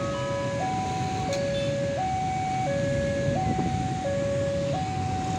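Level-crossing warning alarm: an electronic two-tone signal alternating steadily between a high and a low note, each held for under a second, sounding as the barrier comes down to warn of an approaching train. Low traffic rumble from motorbikes underneath.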